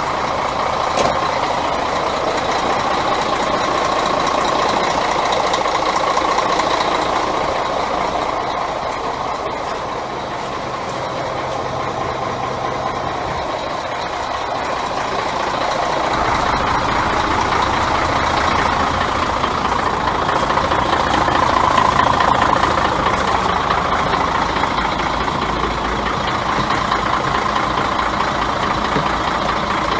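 Mercedes-Benz Axor 1840 truck's straight-six diesel engine idling steadily, growing softer and then louder as the microphone moves along the truck.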